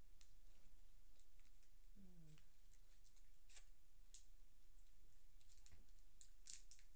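Faint scattered clicks and smacks of mouths working on sour candy, with a short falling hum about two seconds in.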